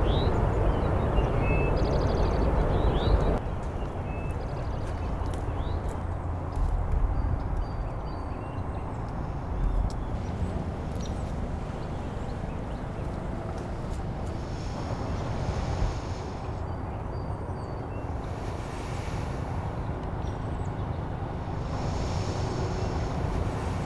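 Outdoor ambience: a steady low rumble with short, high bird-like chirps scattered through it and a couple of brief high buzzes.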